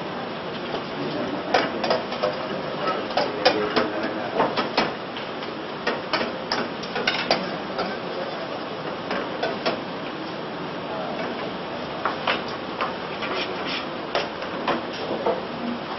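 Metal cooking utensils knocking and scraping against a stainless saucepan and a frying pan while sauces are stirred: irregular sharp clicks and knocks in clusters, several a second at times, over a steady background noise.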